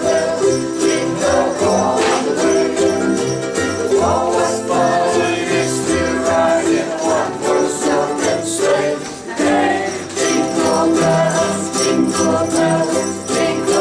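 A group of ukuleles strumming a children's Christmas song, with jingle bells shaking along.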